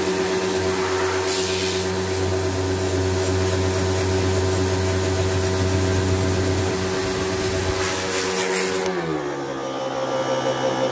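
Pressure washer running as it sprays water onto a window air conditioner: a steady motor whine under the hiss of the jet. About nine seconds in the hiss drops and the motor's pitch falls to a lower steady tone.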